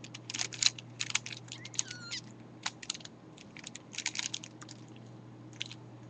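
A 5x5 Rubik's cube's plastic layers being turned by hand: runs of quick clicks and clacks as the inner slices are turned back into place, thinning out over the last couple of seconds.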